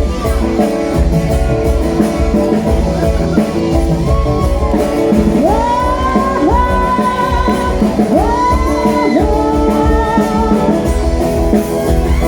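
The instrumental break of a Thai pop ballad, with a steady bass beat under held chords. From about five seconds in, a lead melody line slides up in bends and holds its notes.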